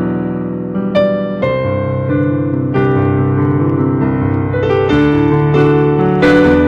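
Solo piano music: slow, sustained chords, a new chord struck about every second.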